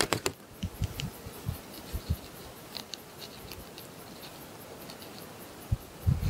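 A buck deer grazing close by, cropping and chewing grass: soft crunching and tearing clicks, frequent in the first couple of seconds, then sparser.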